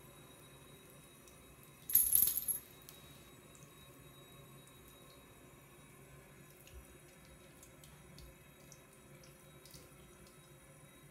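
Faint trickle and lapping of water in a ceramic bathroom sink as cats drink from it. About two seconds in there is a short, loud, bright jingling clatter, and a few faint ticks follow.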